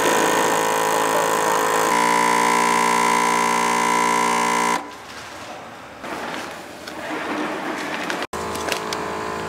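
Vacuum sealer's pump running with a steady buzzing hum while it draws the air out of a bag of chicken pieces. About two seconds in the pitch shifts to a heavier, steadier hum as the vacuum builds, and about five seconds in the pump cuts off suddenly. A quieter hiss follows, and near the end the hum starts again.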